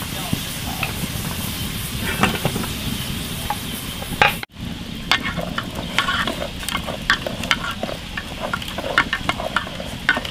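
A lidded pot boiling with a steady hiss of steam escaping under the lid. About four seconds in the sound cuts to wooden chopsticks stirring beans in a boiling aluminium pot, clicking and scraping irregularly against the metal over the bubbling water.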